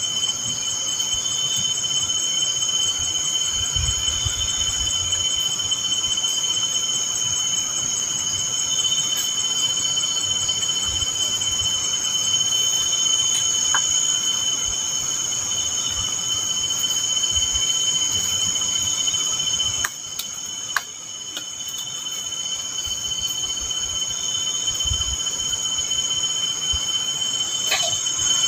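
Night insects chirring in a steady, high, unbroken drone of two pitches. The sound drops away briefly about twenty seconds in and then builds back gradually.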